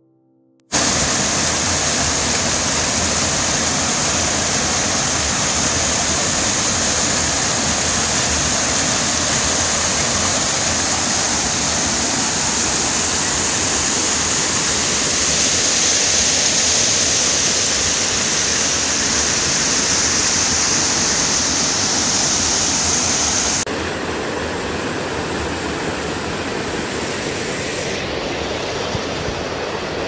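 Small mountain waterfall cascading over rocks: a loud, steady rush of water that starts suddenly about a second in. About 24 seconds in it drops to a softer, quieter stream flow.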